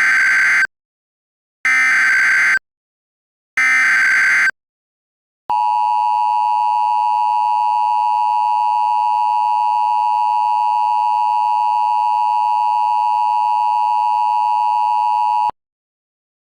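Emergency Alert System SAME header: three buzzy digital data bursts about two seconds apart, then the two-tone attention signal held steady for about ten seconds and cut off suddenly. It marks the start of a broadcast emergency alert.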